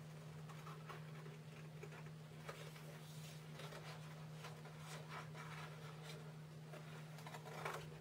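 Scissors snipping through a printed paper sheet: a run of short, irregular cuts with paper handling, the loudest cut near the end. A steady low hum runs underneath.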